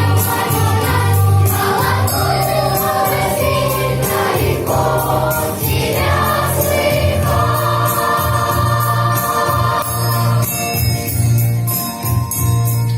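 Choir singing over backing music with jingling bells, holding a long chord in the second half.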